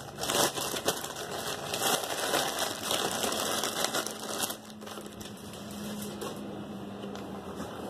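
Thin plastic bag crinkling and rustling in the hands as a cordless drill is pulled out of it, a dense run of little crackles that stops about four and a half seconds in.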